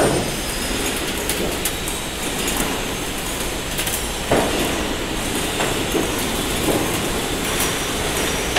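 IBR roof panel roll forming machine running, metal sheet feeding through its forming roller stations: a steady mechanical running noise with a few scattered knocks, the clearest about four seconds in.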